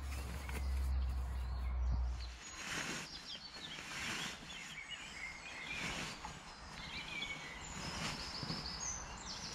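Woodland birdsong: several birds chirping and calling in short whistled phrases. A low steady rumble sits under the first two and a half seconds, then stops.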